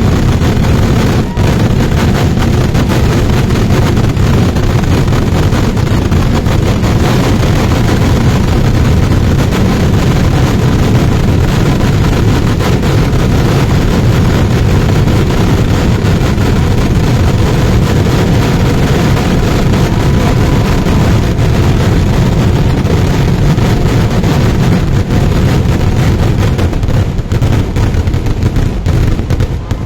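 Dense, rapid barrage of firework explosions, the bangs so close together that they merge into one continuous loud din; near the end the separate bangs begin to stand apart as the barrage thins.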